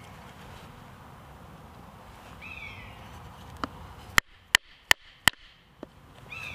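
Four sharp knocks about a third of a second apart, a little past the middle: a knife biting into a green hazel rod as notches are cut into it. A bird gives a short falling call twice.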